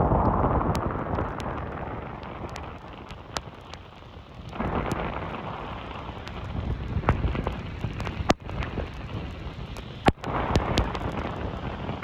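Road and tyre noise inside a moving car on a wet, snowy road, a steady rushing that swells about halfway through and again near the end, with scattered sharp ticks throughout.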